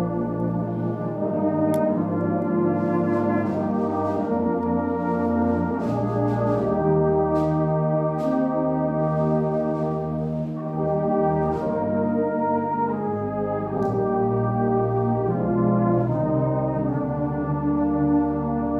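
Full brass band of cornets, horns, trombones, euphoniums and tubas playing slow, sustained chords in harmony, the chords shifting every second or two, with a few short, sharp strikes.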